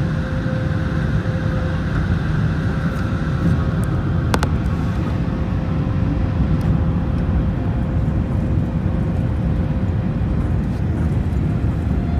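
Airbus A380 airliner noise: a steady low rumble of jet engines and rushing air, with a faint steady hum on top. There is a single sharp click about four seconds in.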